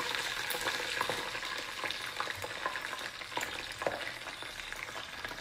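Hot cooking oil sizzling and crackling as a large spider deep-fries in it, a steady hiss with scattered pops that slowly fades.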